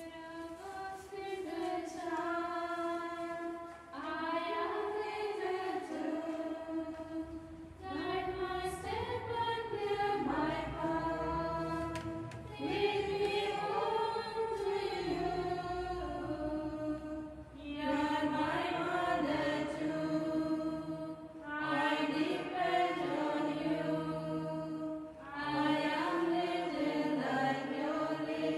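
A small group of women singing a slow hymn together in chant-like phrases of about four seconds each, with short breaks for breath between them.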